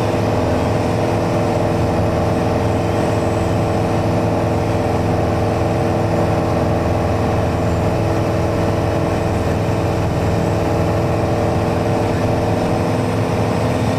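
Single-engine Mooney's piston engine and propeller droning steadily in flight, heard from inside the cabin: an even hum made of several steady tones over a rush of noise, with no change in pitch or loudness.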